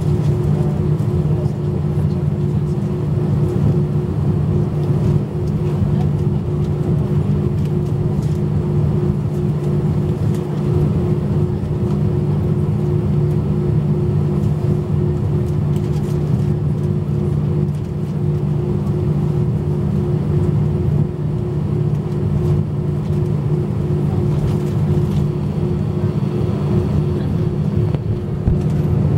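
Steady low drone inside the cabin of a British Airways Airbus A320-232 as it is pushed back from the gate, with a constant hum and no sudden events.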